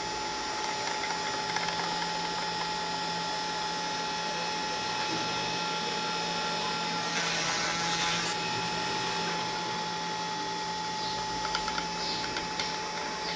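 Stepper-motor drives of a homemade Arduino Mega CNC machine running, a steady whine with mechanical ratcheting sounds, a short rasp partway through and a few light clicks near the end.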